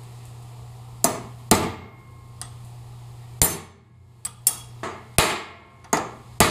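Hand sledge hammer striking a steel punch about ten times, metal on metal, with short ringing after each blow. The punch is walked around a cut-down old bearing race used as a driver, seating a new bearing race in a one-ton full-float axle's wheel hub. The blows come slowly at first and grow quicker in the second half.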